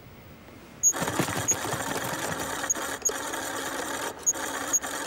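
EcoBot robot's small electric drive motor and wheels running with a rapid mechanical whirr and clatter. It starts about a second in, with a faint high tick about twice a second and a few brief dropouts.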